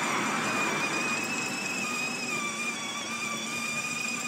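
Children's battery-powered ride-on toy Mercedes GL-class car driving along, its electric drive motors giving a steady high whine over the rumble of its wheels rolling on the path.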